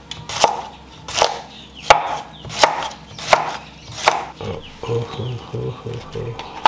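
Kitchen knife slicing a cucumber into rounds on a wooden cutting board: about six sharp chops, one every 0.7 seconds or so, each stroke knocking the blade onto the board. The chopping stops about two-thirds of the way through.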